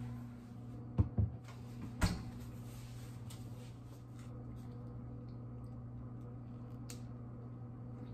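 Panasonic microwave oven running with a steady low hum. Sharp knocks come about one second in and again about two seconds in.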